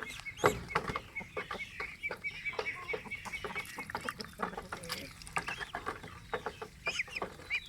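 Domestic fowl calling: a fast run of short, high, repeated chirps for the first few seconds and a few more near the end, over many sharp clicks and taps.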